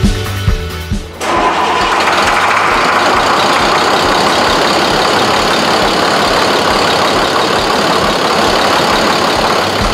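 International DT466 diesel engine running steadily after its in-frame rebuild. It cuts in suddenly about a second in, after a short stretch of background music.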